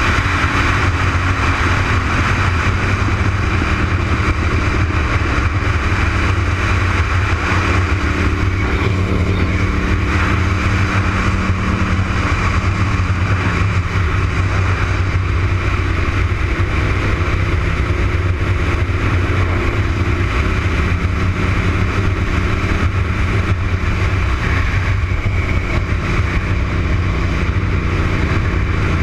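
Honda RC51's 999 cc V-twin engine running at speed on track, heard over heavy wind rush on the bike-mounted camera's microphone.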